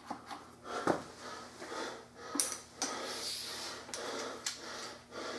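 Handling noises from an electric pressure washer and its hose: a few sharp clicks and knocks, with a stretch of rustling and scraping in the middle as the hose is moved about.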